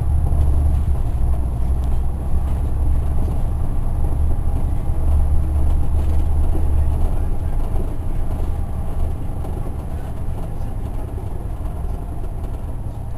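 Caterpillar C9 inline-six diesel of a Neoplan AN459 articulated transit bus, heard from inside the bus as it runs, a steady deep drone. It gets a little quieter about seven seconds in.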